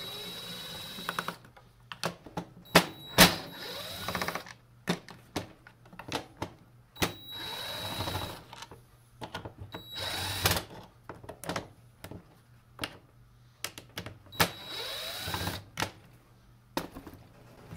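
A cordless power driver whirring in five short runs of about a second each, driving screws into a chainsaw's plastic housing. Sharp clicks and knocks fall between the runs.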